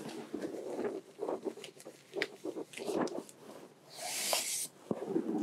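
Cotton gloves being pulled on, with soft rustles and small taps, then about four seconds in a brief scraping hiss as a cardboard archive box slides off a shelf.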